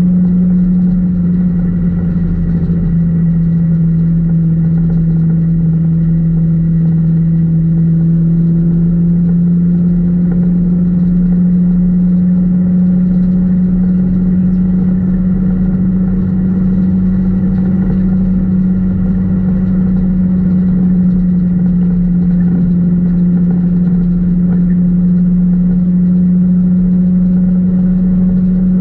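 Four-cylinder engine of an Econo4 dirt-track race car, heard from inside the stripped car, running loud at a nearly constant engine speed with only slight changes in pitch.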